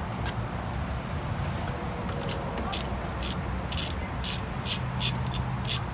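Ratchet wrench clicking in a run of short strokes, about two a second and growing louder toward the end, as the car's wheel lug nuts are loosened.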